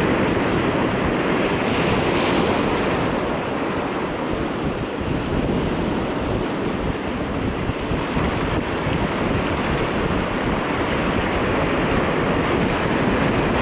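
Rough sea surf washing and breaking over the rocks in a steady, loud rush, with wind buffeting the microphone.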